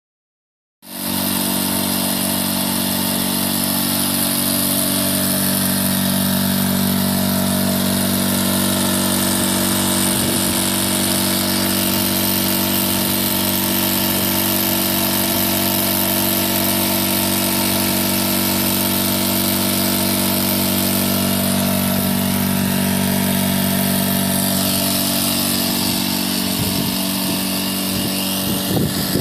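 Industrial roots blower running at a steady speed. It comes in abruptly about a second in, with a constant hum of several tones and a hiss above it, and a few faint knocks near the end.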